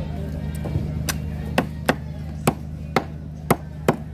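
A golok (machete-style cleaver) chopping raw fish on a thick wooden chopping block: sharp chops, about seven of them at uneven half-second intervals, starting about a second in.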